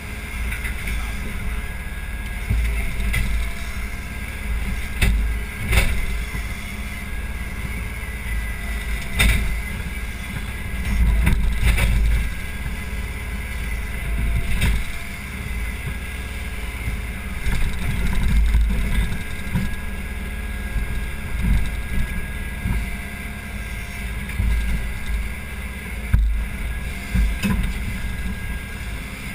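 Case 580 Super M backhoe's diesel engine running, its sound swelling and easing every few seconds as the hydraulic arm works. A few sharp knocks come through in the first ten seconds.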